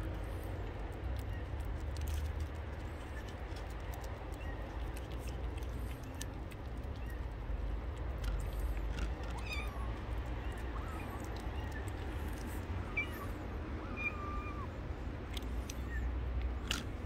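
A cat meowing a few times, short faint calls in the middle, over a steady low rumble and scattered small clicks.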